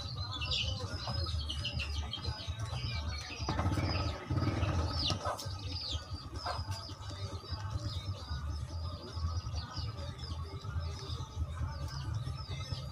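Small birds chirping, short high falling chirps several times a second, over a steady low rumble.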